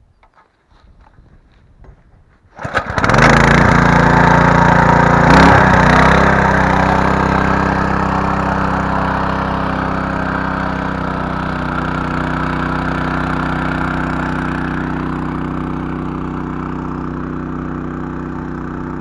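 Small petrol engine of a Champion motor pump starting up about three seconds in, after a few faint clicks, then running steadily.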